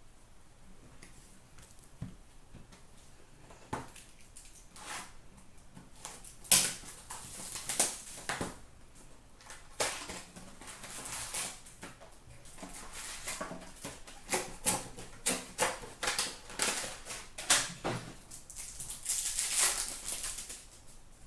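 Trading card packs being torn open and handled by hand: wrappers crinkling and ripping, and cards shuffling. A few faint clicks at first, then from about six seconds in a dense run of crackling and tearing.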